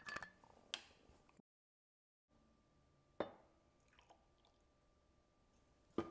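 Vodka poured quietly from a glass bottle into a steel jigger and shaker tin, with a few sharp clinks of glass and metal: a couple in the first second, one about three seconds in and one near the end.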